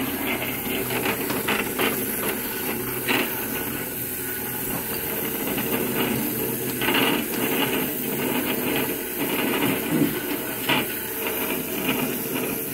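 Two HEXBUG Transformers Warriors battling robots buzzing on their vibration motors and clattering into each other on a plastic arena: a steady buzz with frequent small plastic clicks and knocks.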